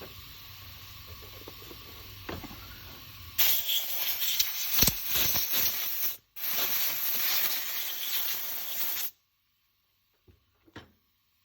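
Loud hiss of a pressurised jet, starting suddenly a few seconds in, broken once for a moment and cutting off abruptly after about five and a half seconds. Two small clicks follow near the end.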